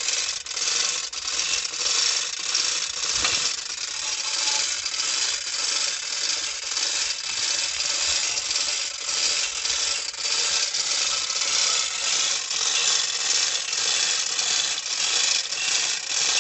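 Continuous light metallic clinking and rattling from the iron chain and rusty pipe fishing tool hung over a borewell casing, with one sharper knock a few seconds in.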